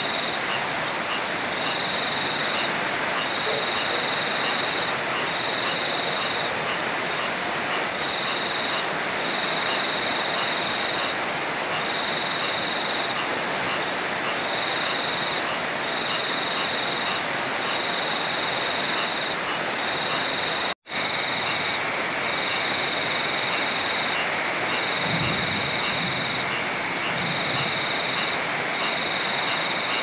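Heavy rain and a rushing river, a steady, even hiss of water, broken by a split-second dropout about two-thirds of the way through.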